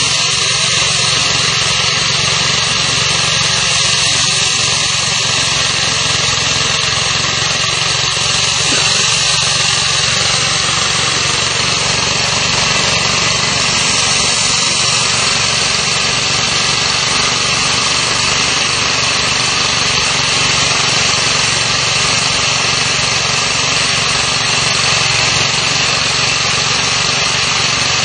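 Core drilling machine running steadily, its water-fed core bit cutting down into a concrete block: a continuous, even machine noise.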